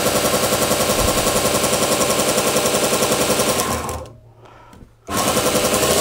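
Small variable-speed belt grinder running with a freshly fitted coarse abrasive belt, on a test run to check the belt's tracking, with a fast, even pulse. About four seconds in it winds down and stops, and about a second later it starts up again.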